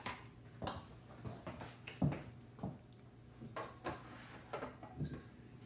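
Light, irregular knocks and clicks of kitchenware being handled, over a faint steady hum.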